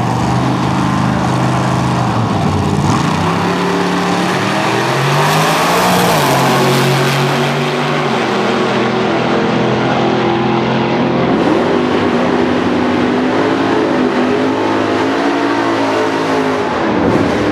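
Two drag-racing cars, one of them a black 1939 Ford coupe, launching and running a quarter-mile pass side by side at full throttle. The engine notes climb and drop back at each gear change.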